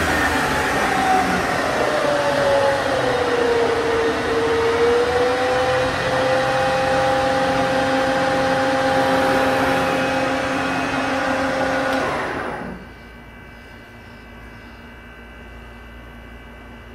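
Harrison Alpha 400 CNC lathe's spindle and 10 hp drive running under power with a loud whirr and a whine. The whine falls in pitch over the first few seconds and then holds steady. About twelve and a half seconds in the spindle noise cuts off sharply, leaving only a low steady hum from the machine.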